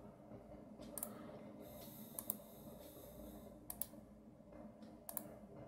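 Computer mouse button clicking: a few faint, sharp clicks, mostly in quick pairs.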